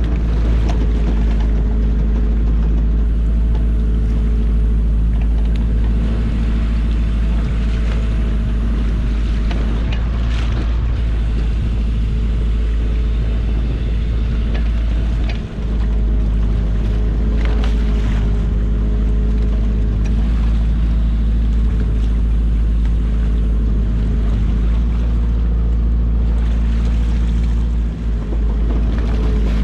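Fishing boat's engine running steadily, with wind and sea noise on the microphone.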